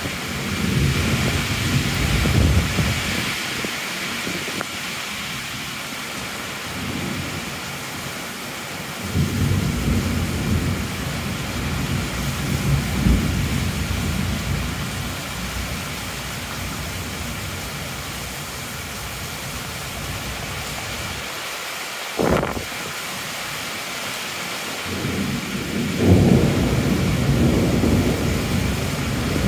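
Heavy rain falling steadily, with low rolls of thunder rumbling in three swells and a single sharp crack about three-quarters of the way through.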